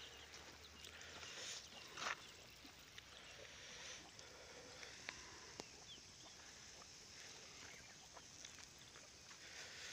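Faint hiss of water spraying from rain-pipe irrigation hoses, with scattered soft clicks and a single louder knock about two seconds in.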